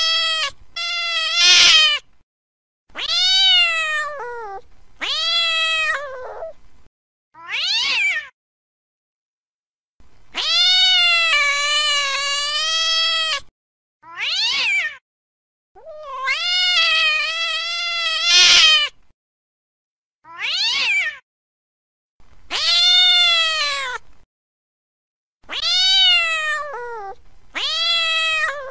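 Domestic cats caterwauling in a fight: long, wavering, drawn-out yowls, one after another, broken by short silences. Two of the cries are harsher and noisier than the rest.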